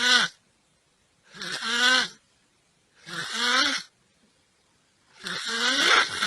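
A person snoring, one snore about every one and a half to two seconds, with quiet gaps between. Each snore carries a wavering, pitched tone, and the last one is longer.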